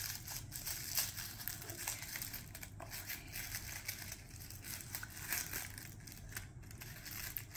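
A small crinkly toy wrapper being crumpled and picked open by hand: a continuous run of irregular crackles.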